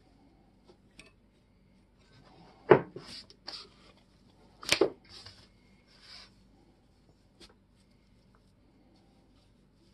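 Handling of an iron hammer-axe head and a paintbrush on a paper-covered table: two sharp knocks about two seconds apart, the first louder, with brief scrapes and brushing between them.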